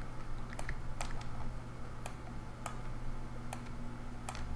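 About eight sharp, irregularly spaced clicks from a computer mouse and keyboard as someone works in 3D modelling software, over a steady low electrical hum.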